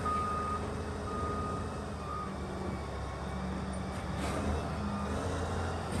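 Heavy diesel earthmoving machinery running steadily in a quarry, with a reversing alarm beeping about once a second for the first two seconds before the beeps fade out.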